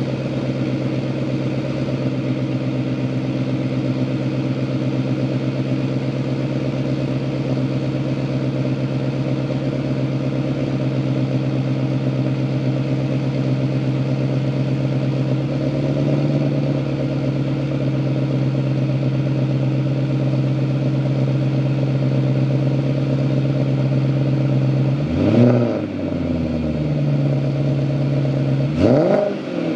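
BMW E39 540i's 4.4-litre V8, running without catalytic converters, heard at the exhaust. It idles steadily, then takes two quick throttle blips near the end, each rev rising sharply and falling back to idle.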